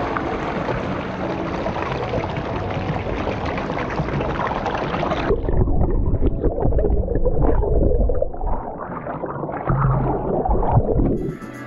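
Shallow creek water rushing and splashing over rocks, steady for about five seconds, then turning abruptly muffled and gurgling as the microphone goes under the water.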